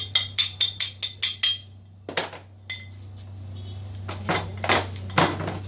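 A fast run of light metallic clinks with a ringing tone, about four a second, stopping about a second and a half in. A few scattered knocks and clatters follow, over a steady low hum.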